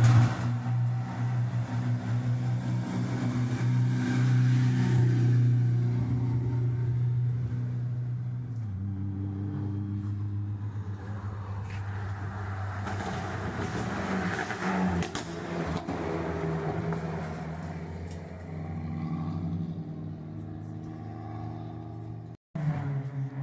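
Rally car engine running at fairly steady revs. It drops to a lower pitch about nine seconds in and shifts up and down through the second half, with a brief cut to silence near the end.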